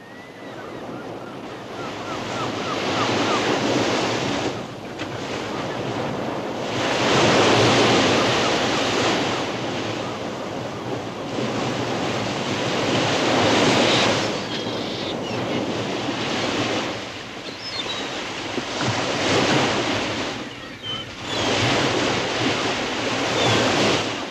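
Open-sea waves and wind, a rushing noise that swells and eases every few seconds.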